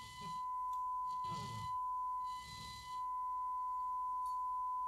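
Steady single-pitch test tone from an FM signal generator, demodulated by a Grundig Satellit 3400 Pro tuned to 88 MHz and played at low volume through an external speaker. It dips briefly about two and a half seconds in. The tone shows the set is receiving the generator's signal.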